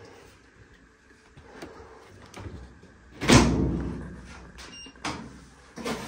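Hinged plastic top of a Fisher & Paykel top-load washer being lowered and shut: a loud clunk about three seconds in, then a lighter knock near the end. Just before the end a steady hiss begins as the washer starts filling with water.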